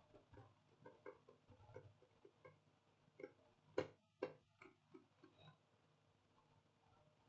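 Faint, irregular small clicks and taps of tools and a laptop motherboard being handled on a repair bench, two sharper ones near the middle, over a faint steady hum.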